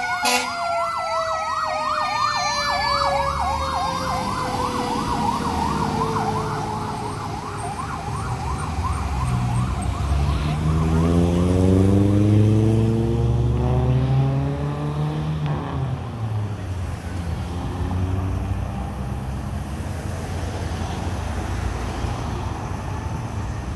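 Fire engine siren in a fast yelp, with a second siren tone gliding steadily down in pitch, both fading as the truck pulls away. The yelp stops about ten seconds in, after which an engine is heard revving up and then easing off, with traffic noise.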